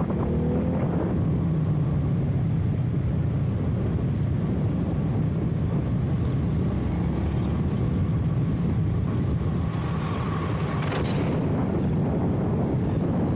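Single-cylinder engine of a Ducati Hypermotard 698 Mono running under way at track speed, its revs rising near the start and again near the end. A burst of wind rush on the microphone about ten seconds in.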